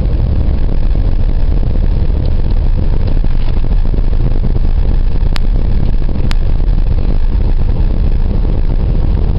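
Wind buffeting the microphone: a loud, steady, gusting rumble, with two sharp clicks a little after halfway.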